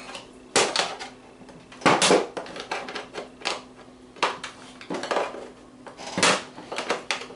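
Hand-held metal opener punching and prying through the sheet-metal lid of an ammunition spam can: a series of sharp metallic crunches and short scrapes, roughly one a second, as the tool is worked hole by hole around the edge.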